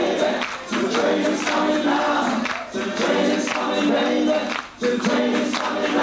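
Live ska band music with a crowd of voices singing along together.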